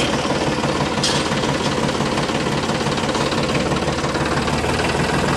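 A tractor engine idling with a steady, low, evenly pulsing chug.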